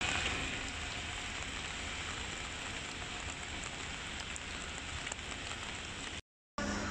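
Rain falling steadily on a car's windscreen, heard from inside the car, with a steady low rumble underneath and scattered faint drop ticks. The sound cuts out for a moment near the end.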